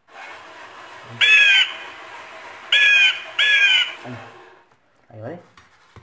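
Recorded bird squawks played through a small loudspeaker by the scarecrow's sound-playback module: three harsh calls over a steady hiss, one call and then two close together about a second and a half later. Near the end come a short low rising sound and a couple of clicks.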